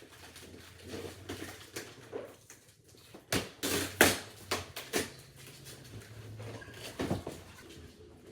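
A string of sharp knocks and clicks, bunched about three to five seconds in with one more near the end, over a low steady hum.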